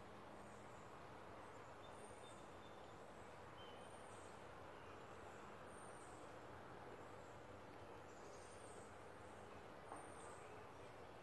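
Faint outdoor garden ambience with a songbird's short, high chirps repeating about once a second, each note dipping slightly in pitch. A faint tap about ten seconds in.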